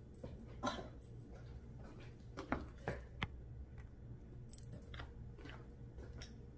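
A handful of soft clicks and knocks at irregular intervals over a low steady room hum: handling and movement noise as a person steps up to the camera, adjusts it and steps back on a hard floor.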